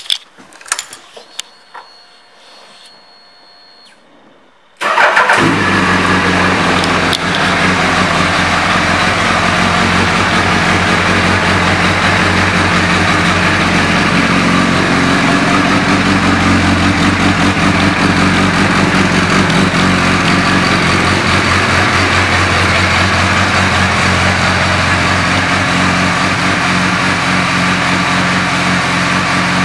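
2008 Suzuki Hayabusa's 1340 cc inline-four, fitted with a Yoshimura exhaust, comes in suddenly about five seconds in after a few quiet clicks, then idles steadily.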